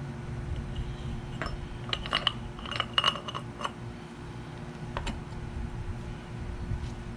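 Small metal parts of a Viair 380C compressor clinking and tapping together as they are handled and fitted. A cluster of light knocks and clinks comes between about one and four seconds in, one of them ringing briefly, then a single click about five seconds in.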